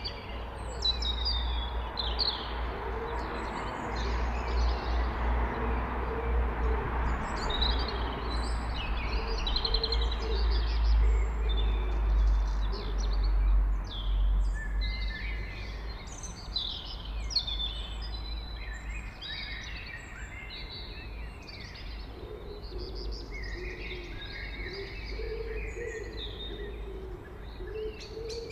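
A blackbird singing, with other birds chirping, over a steady low background rumble.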